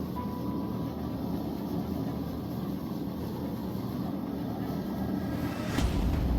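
Propane forge burner running with a steady rushing noise; near the end a single sharp knock, after which the low rumble gets louder.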